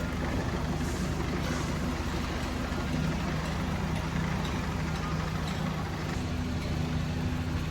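Large engine idling steadily, a constant low drone.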